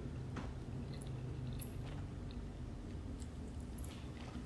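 A person chewing a mouthful of shrimp pasta, with small wet mouth clicks scattered through.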